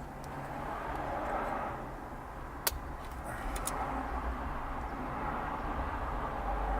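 Traffic noise that swells and fades twice, like vehicles driving past, with one sharp click about two and a half seconds in and two fainter clicks soon after.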